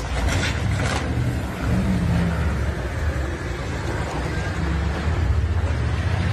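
Steady low rumble of a vehicle moving along a city street.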